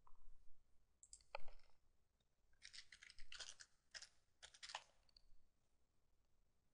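Faint computer keyboard typing: an irregular scatter of keystrokes over a few seconds, stopping about five and a half seconds in.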